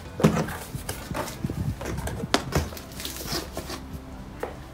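Cardboard shipping box being opened by hand: flaps rustling and scraping, with irregular sharp taps and knocks on the cardboard.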